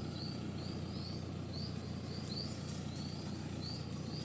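Repeated short rising chirps, about two to three a second, from a small animal such as a bird, over a steady low rumble.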